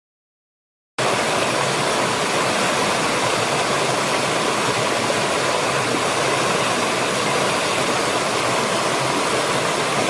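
Rushing water of a small rocky stream cascading over stones: a steady, even hiss that starts suddenly about a second in and cuts off abruptly at the end.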